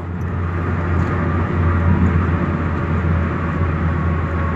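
Steady road noise inside a car cabin at highway speed: a low drone with an even hiss of tyres on the road.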